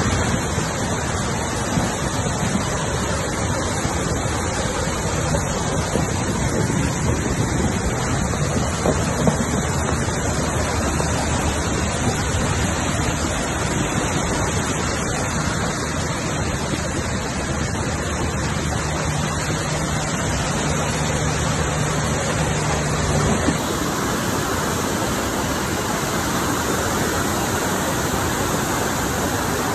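Muddy floodwater rushing in a dense, steady noise. A low steady hum runs for a few seconds before the sound changes, about three quarters of the way through, to water cascading down a washed-out gully.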